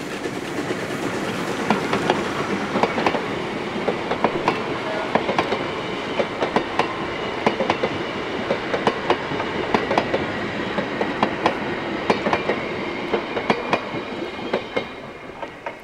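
Narrow-gauge train rolling past, its wheels clicking over the rail joints in a steady run of sharp clicks over a rumble. It fades as the last coach goes by near the end.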